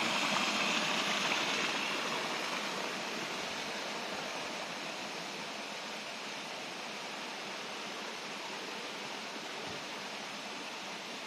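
Spring water rushing in a small stream, loudest at first and easing to a steady, softer flow after about two seconds.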